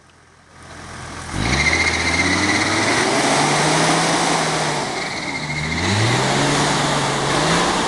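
Vehicle engine starting to pull away about a second in, its pitch rising and then holding steady. It eases off around five seconds and rises again, as if taking up the next gear.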